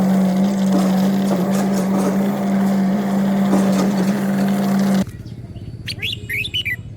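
The motor of a homemade PVC remote-control boat running with a steady hum, cutting off suddenly about five seconds in. A few bird chirps follow near the end.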